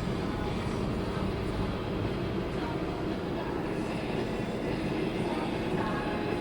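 Steady road and engine rumble of a car driving at freeway speed, heard from inside the cabin.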